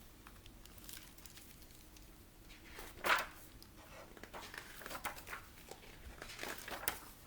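Picture book being handled: faint scattered rustling, with one louder rustle about three seconds in.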